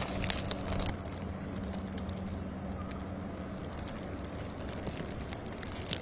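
Steady low hum of an idling vehicle engine under outdoor noise, with a few short crunches in the first second.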